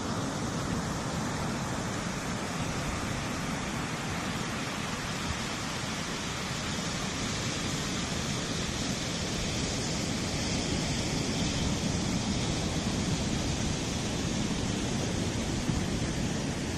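Steady rush of small waves breaking and washing up a sandy beach, mixed with wind.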